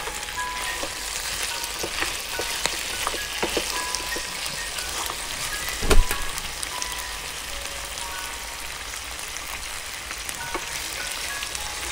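Pieces of boiled oxtail sizzling and crackling as they fry in oil in a nonstick pan, turned now and then with a wooden spoon. There is one louder knock about halfway through.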